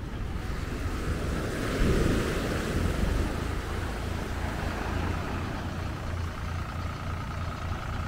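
Tractor engine running steadily, driving a rope winch that hauls a beach seine net in from the sea. About two seconds in, a louder rushing noise rises over it for a second or so.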